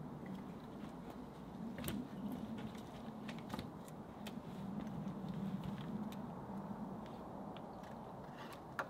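Long wooden pole knocking and scraping against a timber frame as it is manoeuvred into place, with scattered sharp knocks, the loudest near the end, over a low steady hum.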